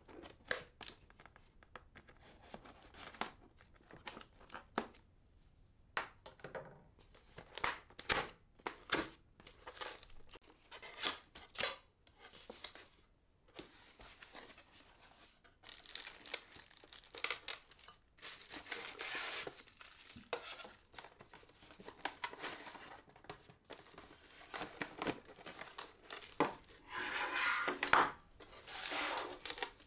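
Cardboard box being opened by hand: flaps pulled apart with sharp tearing and rustling, then longer runs of plastic wrapping crinkling in the second half.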